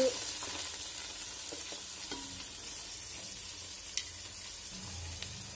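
Hot oil sizzling steadily in a steel pot as diced carrots, green beans and potatoes are tipped in, with a single sharp click about four seconds in.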